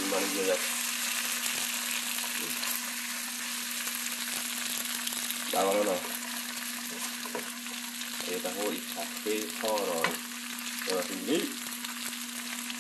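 Pieces of meat in a thick spiced sauce sizzling steadily in a hot non-stick frying pan, stirred with a metal spoon, with a few brief louder bursts of sizzle and scraping.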